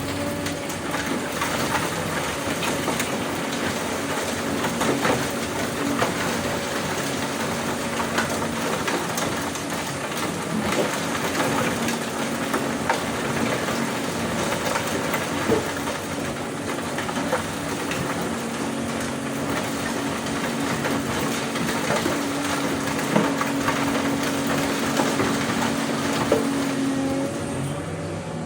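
Doosan DX200A excavator's diesel engine running steadily under working load, with rock and dirt knocking and crunching irregularly throughout as material is dug and loaded.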